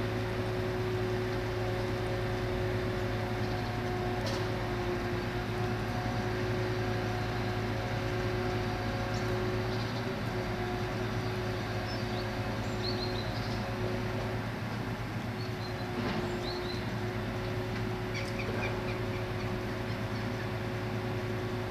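Steady hum of a tree-removal crane truck's engine and hydraulics working the boom and grapple, holding several steady tones. A few faint bird chirps come in over it in the second half.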